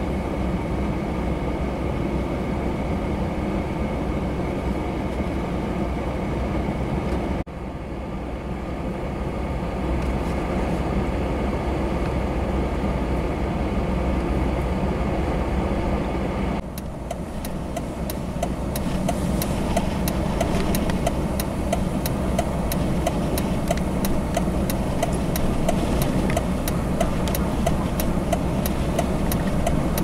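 Steady blizzard wind noise with a low vehicle rumble, in three stretches cut together. In the last third a rapid, evenly spaced ticking, a few clicks a second, runs over the rumble.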